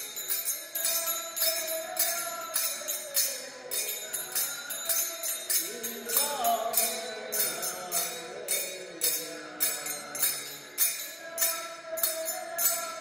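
Music with a steady beat of bright, jingling percussion strokes, about three a second, under a held melodic line that bends in pitch about midway.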